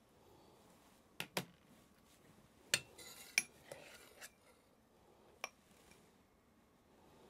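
Stainless steel ladle clinking against a saucepan and a ceramic ramekin as thick rice pudding is scooped and portioned out: about five short, sharp clinks, with a soft scrape of the ladle in the pot in the middle.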